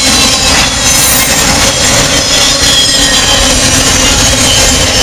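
Intermodal freight train's cars rolling past close by: a loud, steady rumble of steel wheels on the rails, with faint high-pitched wheel squeals running through it.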